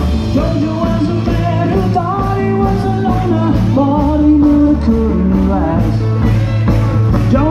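Live band playing rock and roll with a singer over a steady beat.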